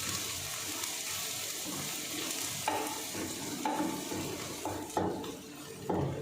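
Whole spices frying in hot oil in a cooking pot with a steady sizzle, while a spoon stirs and knocks against the pot with a short ringing clink about four times in the second half.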